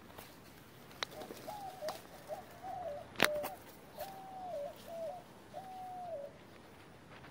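A bird cooing: a run of short, level notes, then a few longer ones that drop at the end. A sharp click comes about three seconds in, the loudest sound, with a few fainter ticks around it.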